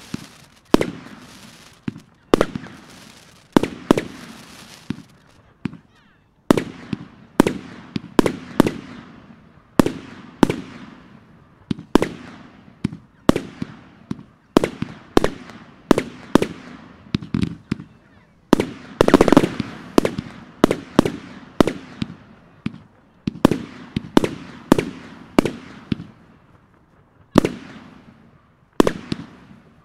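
'Ice Flowers' firework cake firing a steady string of shots, about one or two a second. Each shot is a sharp bang with a fading tail, and there is a denser volley a little after two-thirds of the way through.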